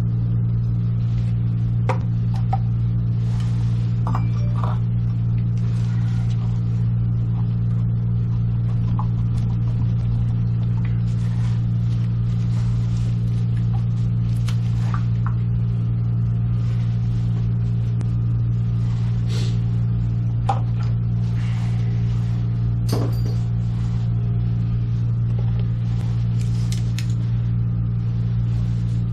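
A steady low hum from a running motor or electrical appliance, unchanging throughout, with scattered light knocks and clinks of hand work on top.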